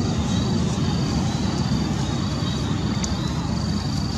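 Steady low rumble of outdoor background noise, with an insect chirping high and repeatedly over it, about twice a second. A single brief click comes about three seconds in.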